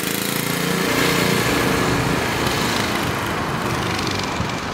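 Minibike's small engine running under throttle as it rides off, its pitch climbing in the first second or two, then growing fainter as it pulls away.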